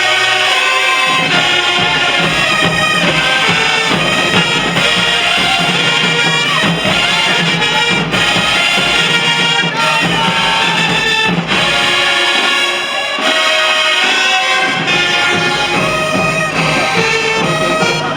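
High school marching band playing a tune, led by trumpets and trombones, heard from across a stadium.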